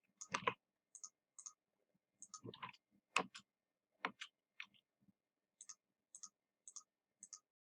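Computer mouse clicking: a dozen or so separate short clicks, some in quick pairs, the last few about every half second.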